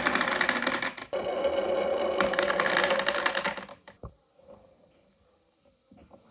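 Rapid, dense rattling clatter from a toy marble run, with a steady hum underneath. It stops abruptly about four seconds in, leaving a few faint clicks.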